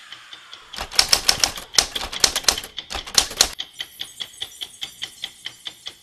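Typewriter sound effect: a rapid clatter of keystrokes starts about a second in and lasts about three seconds, then gives way to a steady ticking at about four ticks a second.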